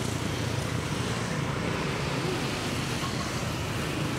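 Steady street traffic noise, with motorbike engines running by on the road.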